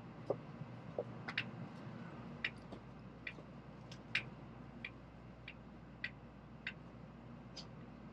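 Inside a Shinkansen bullet train car: a steady low cabin hum with light, sharp ticks roughly every half second.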